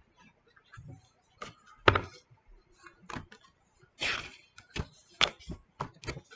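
Pages of a hardcover picture book being handled and turned on a table: scattered light taps and paper rustles, with a longer page-turn swish about four seconds in.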